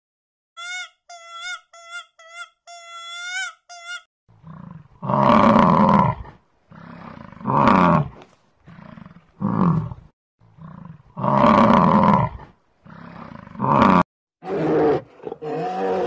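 A quick run of short high-pitched squeaks, then from about four seconds in a series of loud, harsh animal roars, one every two to three seconds.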